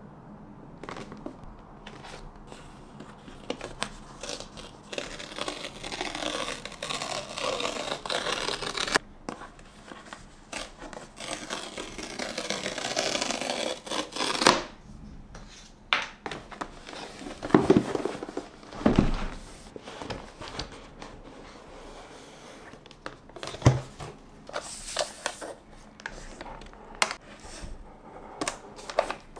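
Cardboard and paper packaging of a MacBook Pro box being handled and opened: two long tearing stretches as paper seal strips are pulled off, followed by a few knocks and scrapes as the box is handled and the lid comes off, then light paper rustling near the end.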